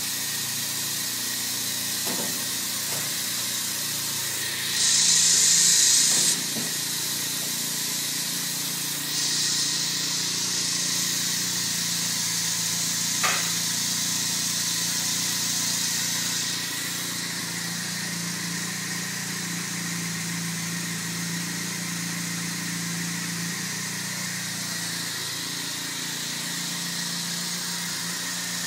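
Spray foam rig running with a steady hum, broken by two bursts of compressed-air hiss. The first, about five seconds in, is short and loud; the second, from about nine to seventeen seconds in, is longer and softer. One sharp click comes near the middle.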